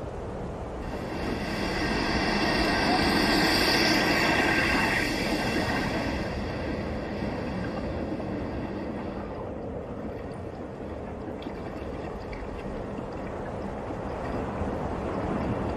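Outdoor ambience at Strokkur geyser: wind rumbling on the microphone and a murmuring crowd of onlookers. A loud rushing hiss swells and fades over the first six seconds, and near the end the geyser erupts with a rush of water and steam.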